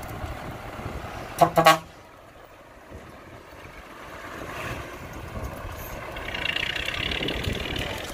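Dump truck's diesel engine running, growing louder from about halfway on as the truck pulls away. About one and a half seconds in there is a brief, loud double blast, the loudest thing heard.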